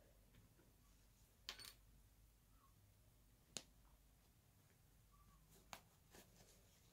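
Near silence with a handful of faint clicks and light handling noises from pinning fabric by hand.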